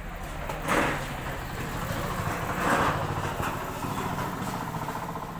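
Steady low engine hum of road traffic, with two brief louder noisy swells, about a second in and near the three-second mark.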